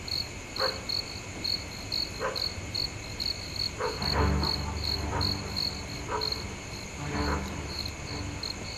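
Crickets chirping in an even, high-pitched pulse, about three chirps a second, with a few brief faint sounds in between.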